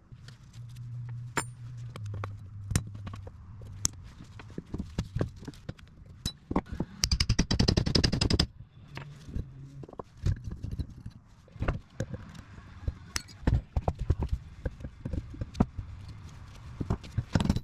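Sharp metal knocks and clanks from tools working a U-joint and H-yoke off a truck's front driveshaft. About seven seconds in there is a loud rapid burst of strikes lasting over a second.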